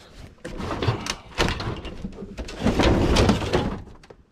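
Wooden boards and other junk being shifted and pulled out of a crowded pile, scraping and knocking against each other, loudest from about two and a half to three and a half seconds in.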